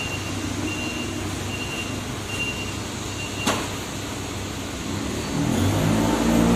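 Forklift engine running with its warning beeper sounding a short high beep a little more than once a second. The beeping stops about three and a half seconds in with a sharp clank, and near the end the engine speeds up and runs louder.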